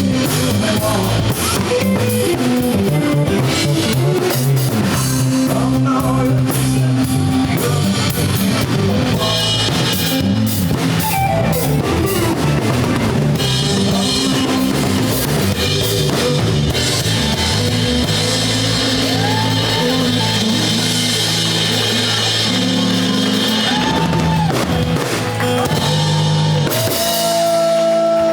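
Rock music with drum kit and guitar, playing continuously at a steady loud level.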